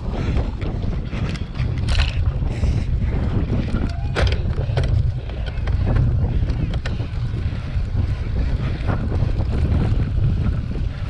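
Wind buffeting the microphone of a bike-mounted camera over the rumble of a cyclocross bike riding across bumpy grass, with sharp rattles and knocks from the bike a few times.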